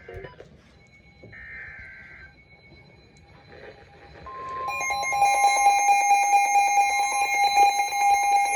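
Emergency Alert System attention signal: a loud, steady alarm tone that begins about four seconds in after a quiet stretch and holds. It announces a second severe thunderstorm warning.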